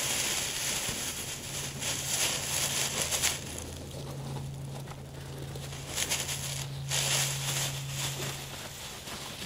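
Dry grass rustling and crackling as a puppy moves in it, in irregular swells, over a low steady hum.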